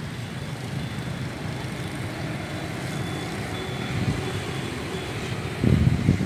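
Steady background noise of street traffic, with a louder low rumble near the end.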